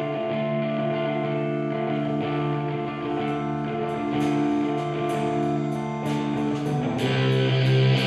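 Instrumental rock music from a band's demo: held electric guitar chords, with low bass coming in about two seconds in and regular sharp percussive hits from about halfway. The sound grows fuller and louder near the end.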